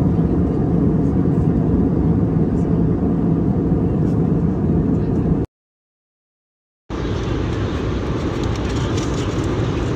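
Steady low roar of a vehicle in motion, cut off abruptly about five and a half seconds in by a second and a half of dead silence, then resuming with more hiss.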